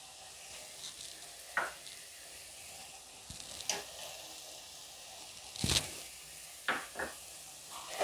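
Thick carrot halwa sizzling steadily in ghee in a nonstick pan, with a few short scrapes of a steel spatula against the pan; the loudest scrape comes near the six-second mark.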